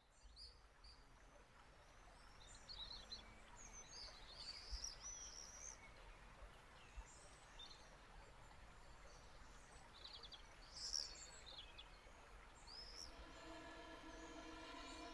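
Faint woodland ambience: scattered bird chirps and calls over a low hiss. Near the end, a steady pitched tone with several overtones fades in and grows louder.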